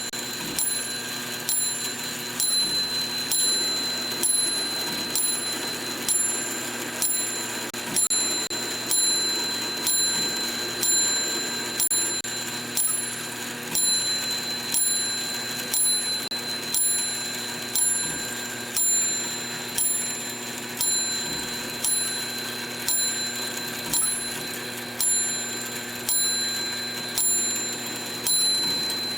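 Brass clock movement with its escapement removed, the gear train spinning freely as the mainspring runs down: a steady high whir with a click about once a second.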